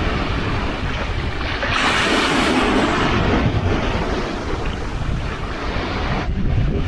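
Sea waves washing onto the shore, one wave surging up louder about two seconds in. Wind buffets the microphone with a low rumble throughout.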